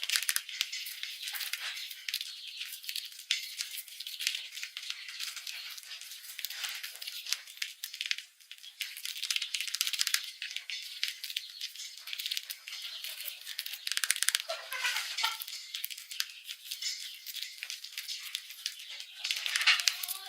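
Mice rustling and scratching about in dry bedding or paper: a dense, continuous patter of small clicks, scratches and crinkles.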